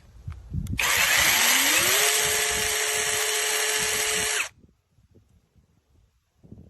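Battery-powered mini chainsaw's brushless electric motor spinning up, its whine rising in pitch, then running steadily for a few seconds before cutting off suddenly.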